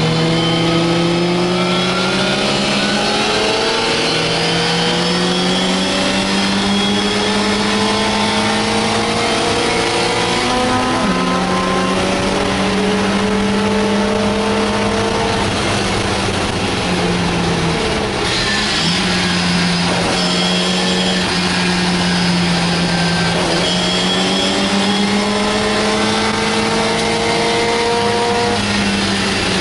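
MGA's four-cylinder engine at racing speed, heard from inside its cockpit. The pitch climbs slowly and drops back several times with gear changes and lifts, with a brief break about 18 seconds in.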